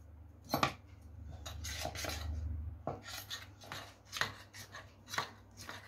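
Metal spoon scraping and knocking against a steel bowl while stirring a thick flour paste with detergent activator into slime: a run of irregular scrapes and taps, the sharpest about half a second in, with a steadier stretch of scraping in the first half.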